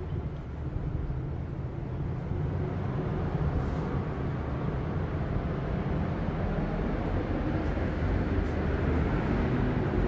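Steady low rumble of city traffic, with the faint pitched hum of an engine coming in near the end.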